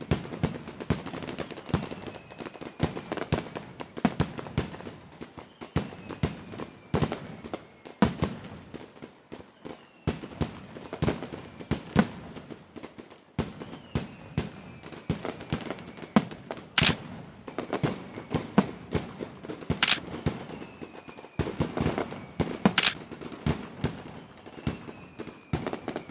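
Fireworks display: a dense, continuous run of bangs and crackling reports, with three especially sharp, loud cracks about three seconds apart in the second half.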